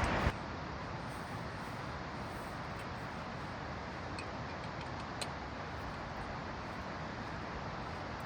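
Steady rushing of a waterfall, an even roar with no rhythm or pitch, and a single faint click about five seconds in.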